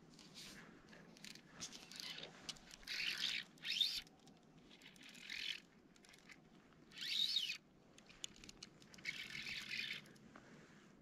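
Fly reel's clicker drag buzzing in five short bursts, a few with a rising or falling whir, as a hooked trout runs and pulls line off the reel.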